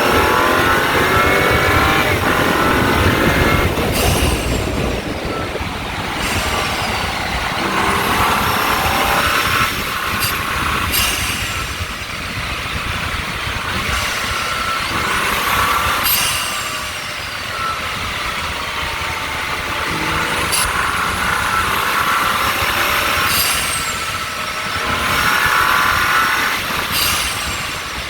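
BMW M135i's turbocharged N55 straight-six, tuned to stage 1 with a decat and middle-silencer delete, heard from the front grille under hard driving. The engine note rises in pitch through repeated pulls, several times, and breaks off at each shift or lift-off, over steady wind and road noise.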